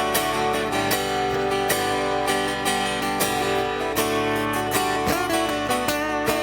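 Acoustic guitar strummed in a steady rhythm, playing an instrumental passage of a country song.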